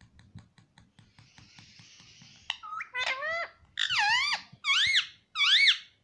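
Indian ringneck parakeet giving four loud calls in the second half, each rising then falling in pitch, about one every second. Before them comes a run of light clicks from its beak tapping a metal coin on a plastic tray.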